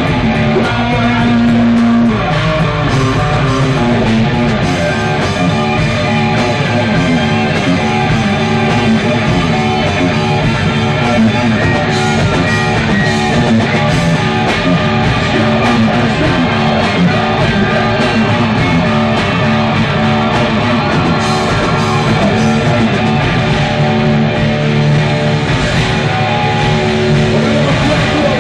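A metal band playing live: distorted electric guitars with bass and drums, loud and without a break.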